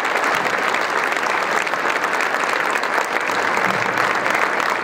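An audience applauding steadily, dense hand-clapping after a speech ends.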